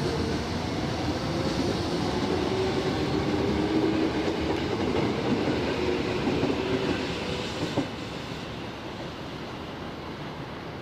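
Electric commuter train running along a station platform: a steady motor whine over the rumble of wheels on rail. The sound drops off sharply about eight seconds in.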